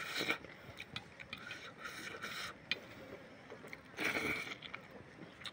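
Eating by hand from an enamel plate: fingers mixing rice and scraping against the plate, with short bursts of mouth and eating noise, the last as a handful goes into the mouth about four seconds in.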